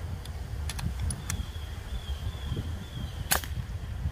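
A single sharp snap from a .22 Brocock Atomic XR PCP air rifle about three seconds in, with a few faint clicks before it, over a low steady rumble.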